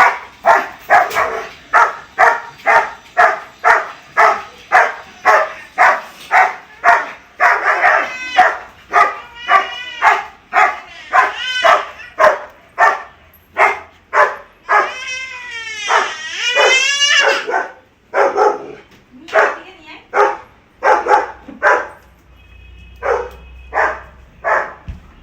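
Dog barking over and over, about two barks a second, breaking twice into high, wavering whining cries, about a third of the way in and again past the middle; the barks thin out near the end.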